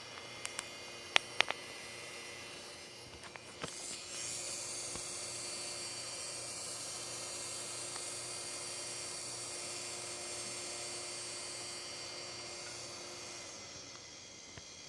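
CD drive spinning up with a few sharp clicks, then a sustained high-pitched screech from about four seconds in that fades away near the end.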